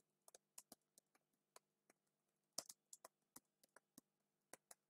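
Computer keyboard typing, faint: a dozen or more irregular keystrokes, with a short pause about two seconds in.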